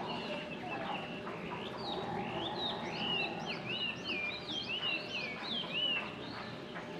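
A songbird singing a quick run of repeated high chirping notes, about three a second, starting about two seconds in and stopping near the end, over steady outdoor background noise.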